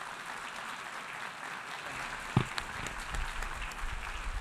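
Audience applause: steady clapping from many hands, with a single thump about halfway through.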